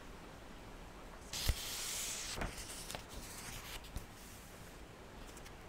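Pages of a paperback book being leafed through: a paper rustle of about a second, starting about a second and a half in and opening with a sharp click, then a few light paper ticks.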